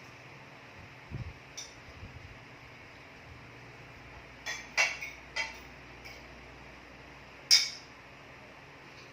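Cutlery clinking against a plate during a silent meal: a few scattered taps, a cluster of clinks around the middle and the loudest one near the end, with a soft knock about a second in.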